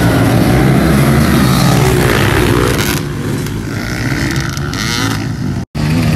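A pack of enduro dirt bikes revving hard as they take off from a mass start. The engines grow fainter about halfway through as the bikes pull away, and the sound cuts out for an instant near the end.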